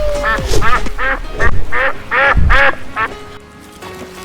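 Canada geese honking, a rapid run of about eight honks in quick succession that stops near the end.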